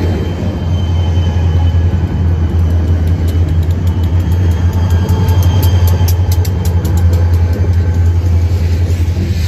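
Several EVWR diesel-electric locomotives pulling a grain train past at close range, their engines giving a loud, steady low drone. A run of sharp clicks comes through about midway. Near the end the last locomotive gives way to the first covered hopper cars.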